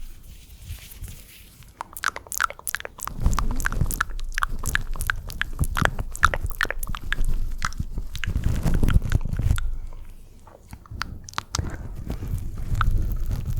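Wet mouth sounds made close to the microphone: a rapid run of clicks and smacks that starts about two seconds in and eases off near the end.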